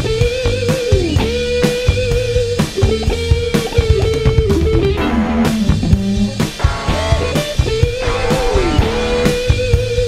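Rock music laid over the pictures: a guitar holding long notes with bends, over bass and a steady drum beat.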